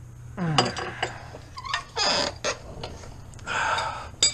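A man grunting and groaning with effort, in short falling-pitched vocal sounds, while working under a car, with a sharp metallic clink near the end.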